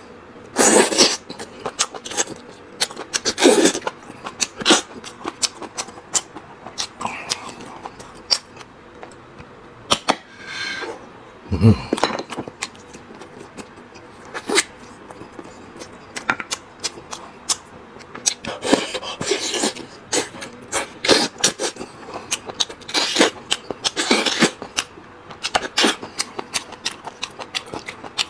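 Loud, irregular slurping and sucking as marrow is drawn out of braised lamb leg bones, with wet smacking chewing in between. A brief low vocal sound comes about twelve seconds in.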